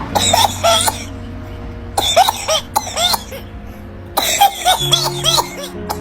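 Coughing in three fits of rapid repeated coughs, with high-pitched sounds between the coughs, given as an example of whooping cough (pertussis): severe coughing followed by a shrill sound on breathing in. Steady background music runs underneath.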